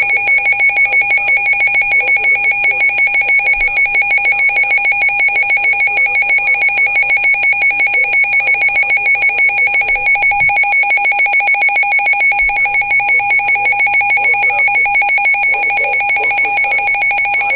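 Emergency Alert System attention tone sounding unbroken: a loud, steady electronic tone with a fine rapid flutter, signalling a severe thunderstorm warning.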